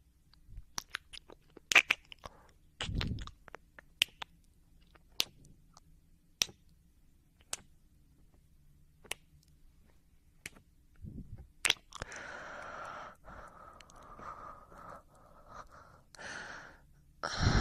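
A person's mouth and breathing sounds: scattered sharp clicks and smacks for about the first twelve seconds, then long breathy exhales from about twelve seconds in.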